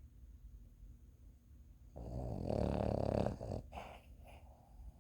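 Snoring: quiet for about two seconds, then one loud snore lasting over a second that trails off into softer breathing.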